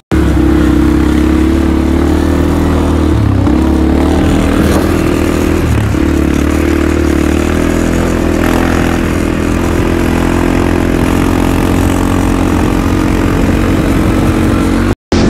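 ATV (quad bike) engine running steadily while the quad is ridden, heard from on the machine. It drops out for an instant near the end.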